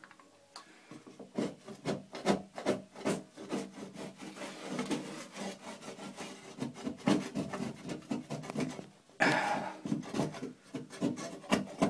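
Hand-held metal wallpaper scraper scraping old woodchip wallpaper off a plaster wall in quick, irregular repeated strokes, starting about a second in. A longer, louder scrape comes near the end.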